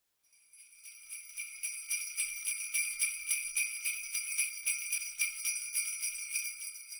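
Sleigh bells shaken in a quick, steady rhythm of about four to five shakes a second, fading in over the first second or two.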